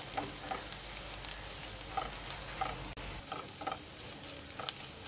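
Chopped onions and ground spices sizzling in hot oil in a nonstick kadhai, with a silicone spatula stirring and scraping them around the pan in short, irregular strokes.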